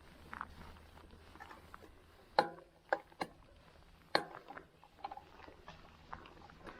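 Mountain bike rolling over a dirt trail: scattered clicks and light rattles, with sharper knocks about two and a half, three and four seconds in.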